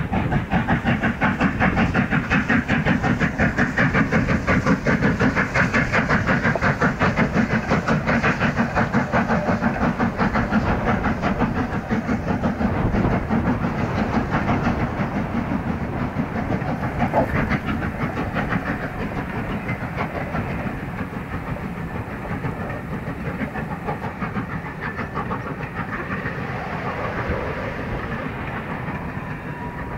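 LMS Royal Scot class three-cylinder 4-6-0 steam locomotive 6100 Royal Scot working hard with a train, its exhaust beats coming in a rapid, even rhythm. The beats fade steadily over the second half as the train draws away.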